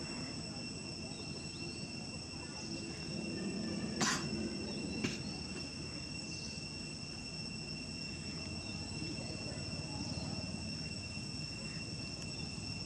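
Insects singing in a steady, unbroken high-pitched drone, with two sharp clicks about four and five seconds in.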